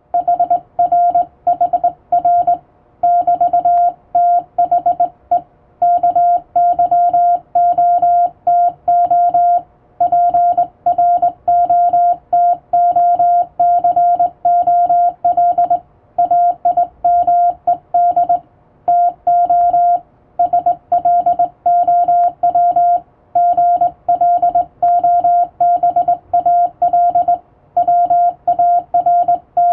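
Morse code sent by hand on a straight key, heard as a single tone of about 700 Hz keyed on and off in dots and dashes, with short pauses between characters and words.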